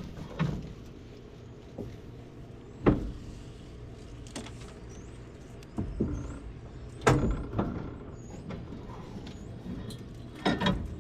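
A steady low machine hum broken by a series of sharp knocks and clunks, about seven in all and irregularly spaced, with faint high chirps in the middle.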